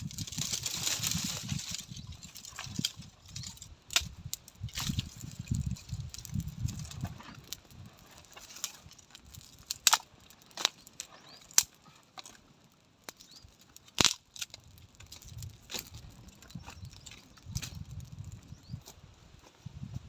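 Wind buffeting the microphone in irregular low rumbling gusts, with a short hiss at the start and scattered sharp cracks and clicks throughout, the loudest about fourteen seconds in.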